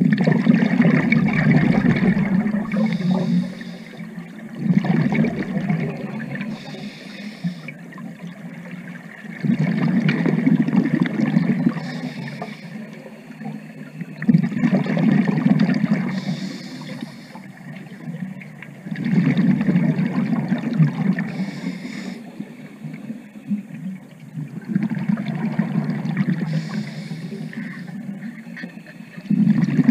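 Scuba diver breathing through a regulator underwater: exhaled bubbles rumble out in bursts of two to three seconds, about every five seconds, six times over, with a short hiss of inhalation between bursts.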